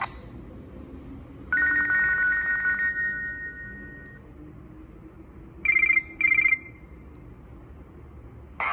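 Nokia 6303 Classic mobile phone playing short electronic tones. First comes a two-note chime, held for about a second and a half and then fading. About two seconds later there are two short, fluttering beeps in quick succession.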